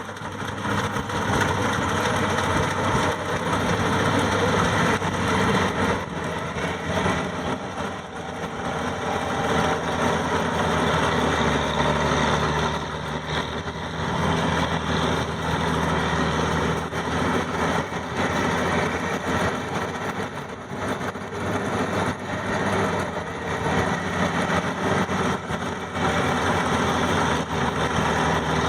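Maxxi 85 combine harvester running steadily: a steady engine drone under a dense mechanical noise, the loudness dipping and swelling slightly now and then.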